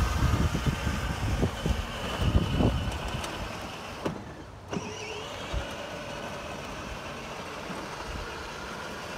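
Battery-powered Corvette ride-on toy car running, its small electric motor whirring and plastic wheels rolling on asphalt. Low rumbling bumps for the first three seconds, then quieter and steadier.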